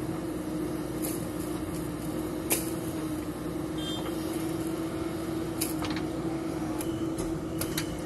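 JCB 3DX backhoe loader's diesel engine running steadily under hydraulic load as the backhoe works, a constant hum with a strong low tone. Several short sharp knocks stand out over it, the loudest about two and a half seconds in.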